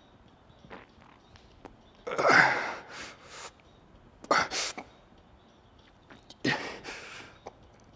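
A man breathing hard from exertion during a heavy set of lifts: three loud, forceful exhales about two seconds apart, with smaller breaths between.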